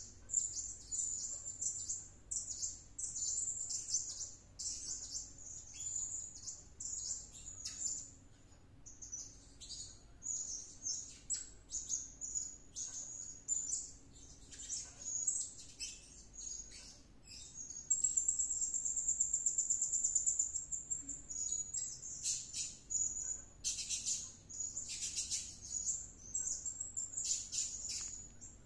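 Blue-crowned hanging parrot (serindit) calling on and on in rapid, high-pitched chirps, with a fast, even trill of about three seconds a little past the middle and louder bursts of chirps near the end.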